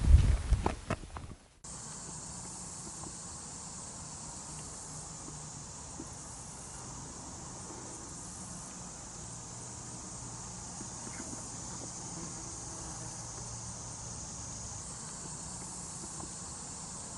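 Steady high-pitched drone of an insect chorus. In the first second or so a few footsteps crunch on a leaf-littered forest trail, then they cut off suddenly.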